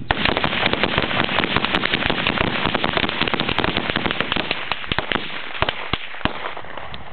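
Several rifles firing rapidly at once: a dense crackle of overlapping shots that thins to a few scattered single shots over the last couple of seconds.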